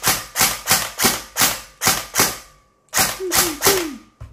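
LCT AK74MN airsoft electric gun (AEG) firing in semi-automatic, rapid single shots at about three or four a second. After a short pause near the middle, three more shots follow, then a single click.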